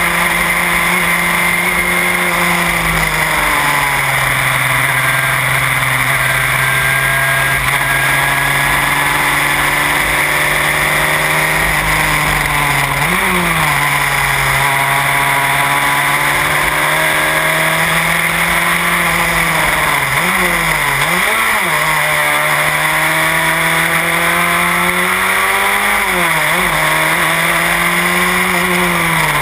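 Formula Renault single-seater's engine heard from the cockpit, running hard at high revs. The pitch drops about three seconds in, then holds. Quick rev spikes about 13 seconds in, twice around 20 seconds and again near 26 seconds fit throttle blips on downshifts. A steady rush of wind and road noise runs underneath.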